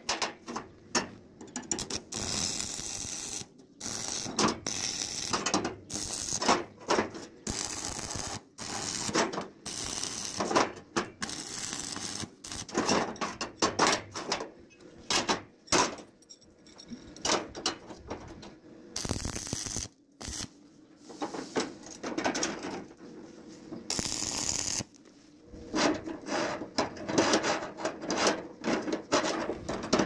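Stick arc welding crackling in short stretches that break off abruptly, mixed with repeated clanks and knocks of steel bars and pipe being handled and set against the steel door frame.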